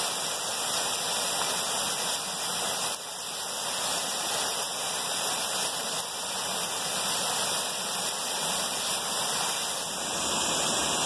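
Steady rush of a whitewater creek cascading over rocks.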